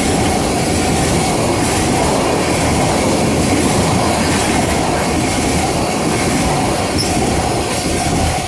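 A long freight train of tank cars rolling past close by: a loud, steady rush of steel wheels on the rails, with a faint, steady wheel squeal.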